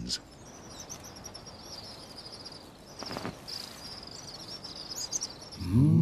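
Outdoor natural ambience: a soft hiss under a continuous chorus of fast, high-pitched chirping. Sustained music chords come in just before the end.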